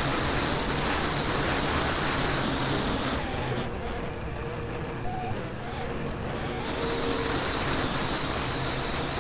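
Snowmobile running along a snowy trail; its sound eases off about three seconds in and picks up again near seven seconds.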